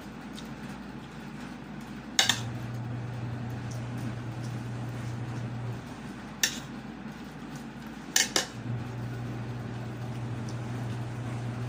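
Dishes clinking during a meal: a few short sharp clinks, a pair about two seconds in, one midway and a quick pair about eight seconds in, over a low hum that cuts in and out.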